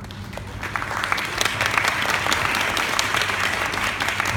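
Audience applauding, the clapping swelling about a second in and holding steady.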